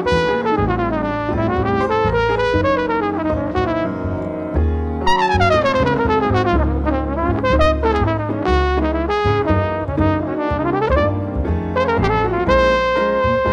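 Jazz trumpet soloing in quick runs of notes that sweep down and up, ending on a held note, over bass and piano.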